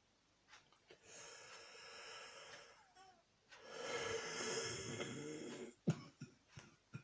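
Two long, wheezy breaths from a man with a cold, the second one louder. They are followed by a couple of short, sharp catches near the end.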